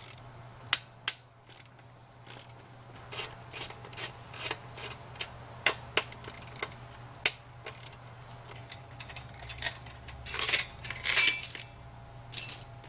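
Ratchet wrench clicking in an even run as it backs off the nuts on the tie rods of a Nissan Leaf battery module stack's metal housing. Later come longer metal scrapes as the long tie rods slide out of the stack, and a clink near the end as they are set down.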